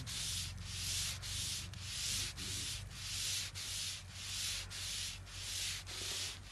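Kite string being coated with manjha: a hand-held wad of paste is rubbed along the taut red string, giving a rhythmic scraping hiss at just under two strokes a second.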